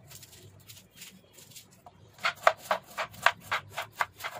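Kitchen knife dicing an onion on a wooden cutting board: a few faint light cuts at first, then from about halfway a steady run of chops, about four a second, the blade knocking on the board with each stroke.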